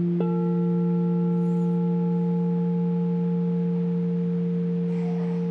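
Quartz crystal singing bowl ringing with a strong, steady low hum and several pure overtones above it. About a quarter second in, a light tap of the mallet on the rim brings in higher overtones, which go on sustaining.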